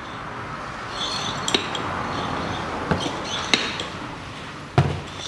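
Hand-operated oil pump being worked to push gear oil through a hose into a manual gearbox. A run of sharp clicks and clacks, one every second or so, with the loudest near the end, over a steady hiss.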